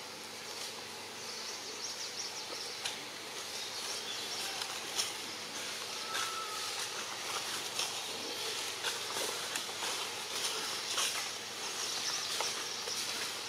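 Outdoor ambience: a steady insect drone, with many small clicks and rustles scattered through it.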